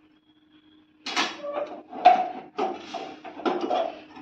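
A steel spoon scraping and stirring in a steel kadhai of Maggi noodles, in a run of separate scrapes starting about a second in, over a faint steady hum.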